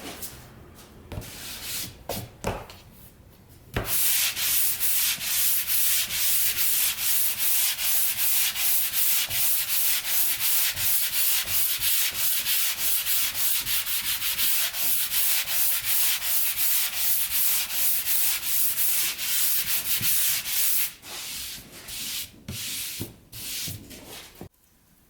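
Plywood being sanded by hand in quick back-and-forth strokes, about three to four a second, starting a few seconds in and stopping shortly before the end. Scattered knocks and handling noises come before and after the sanding.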